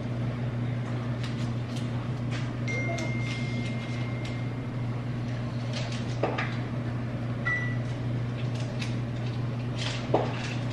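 A steady low hum, with a few knocks and clatters of kitchen items being handled, one about six seconds in and another near the end.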